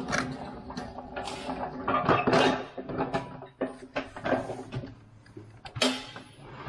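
Empty manual pallet jack being pulled over a concrete floor: its wheels and handle rattle and clank irregularly, with one sharp metallic clank about six seconds in.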